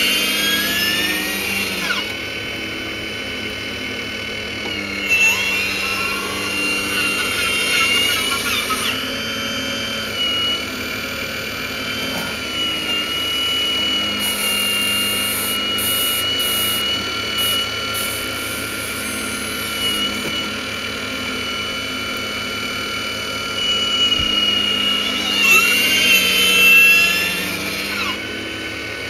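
Radio-controlled model Hitachi excavator's motors whining steadily while it digs and swings its bucket, the pitch gliding up and down at times as the machine works, with a stretch of hissy scraping noise about halfway through.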